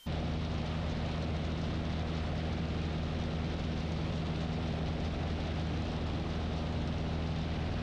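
Cessna 150 in cruise flight: its Continental O-200 four-cylinder engine and propeller drone steadily, with a hiss of airflow over the airframe.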